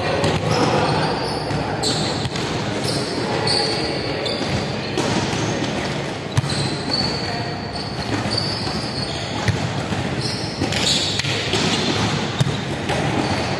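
Echoing sounds of a ball game in a large indoor hall: players' voices and calls, a ball thudding now and then, and several short high squeaks from shoes on the wooden court.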